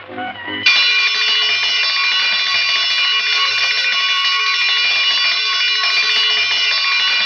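An electric alarm bell starts suddenly less than a second in and keeps ringing loudly and steadily.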